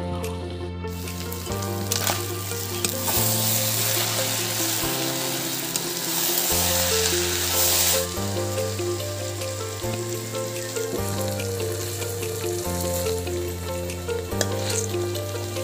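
Food sizzling and frying in a kadai over a wood fire, a steady hiss that is loudest in the middle, under background music of held notes with a low bass line that changes every second or two.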